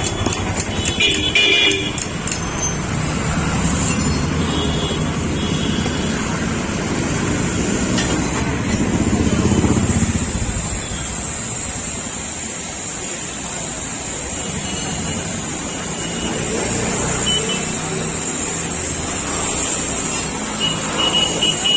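Road traffic noise: a steady rumble of passing vehicles, heavier for the first ten seconds or so and lighter after, with a few short higher-pitched tones.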